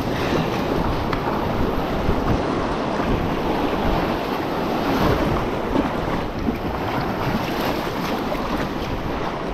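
Whitewater of a small rocky river rapid rushing around the hull of a loaded sea kayak as it runs the rapid: a steady, dense rush of water close to the boat.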